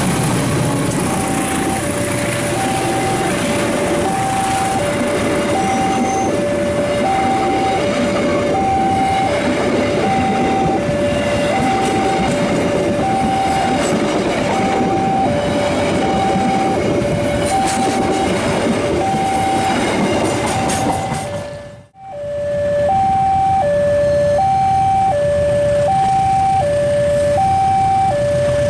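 Railway level-crossing alarm sounding a two-tone alternating warning, about two tones a second, over the loud rumble and wheel clatter of a long passenger train's coaches rolling past. The sound briefly cuts out about three-quarters of the way through, then resumes with the alarm still going.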